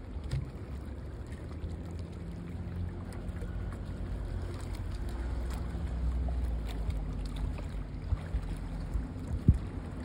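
A low, steady engine rumble mixed with wind noise on the microphone, with a few light knocks and one sharp knock about nine and a half seconds in.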